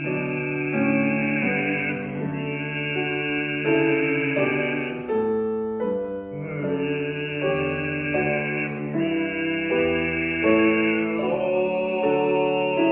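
A male classical singer singing with grand piano accompaniment, with a short break in the voice for a breath about five seconds in.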